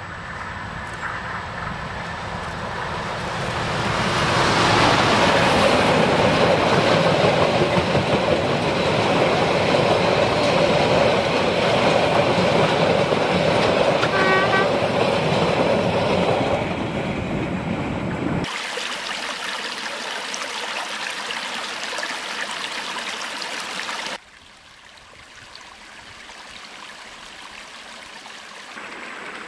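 Narrow-gauge diesel locomotive running loud as it passes close, hauling a train of log wagons that keep rolling by as its engine fades away. Near the end, after a cut, a creek running over stones.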